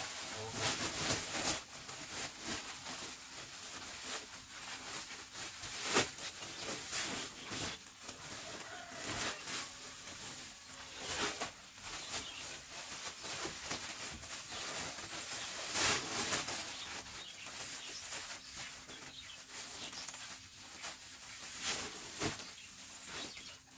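Woven plastic sacks rustling and flapping as they are handled, shaken open and folded, with sharp crinkles throughout and louder crackles about six and sixteen seconds in.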